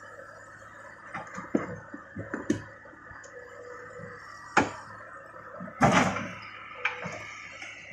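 Hitachi hydraulic excavator running steadily while its bucket knocks and scrapes against large rocks. There are several knocks, a loud one about four and a half seconds in, and the loudest crash, a rock and steel impact, about six seconds in.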